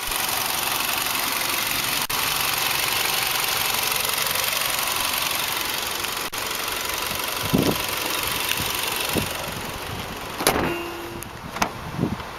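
The 2010 Kia Forte Koup SX's 2.4-litre inline four-cylinder idling with the hood open, a steady running hiss. About three-quarters of the way in the running sound drops away, and a few short knocks follow near the end.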